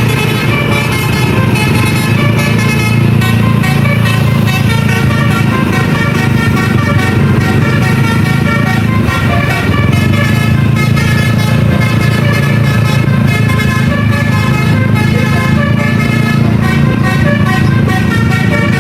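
Basuri multi-tone bus horn (telolet) playing a melody as a long run of short notes, over the steady low running of the bus's engine.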